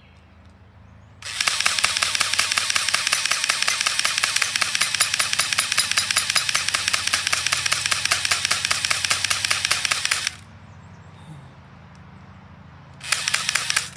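M74DP mini AEG airsoft gun firing on full auto, its battery-driven gearbox cycling in a rapid, even rattle of clicks for about nine seconds. It stops, then fires a second short burst of about a second near the end.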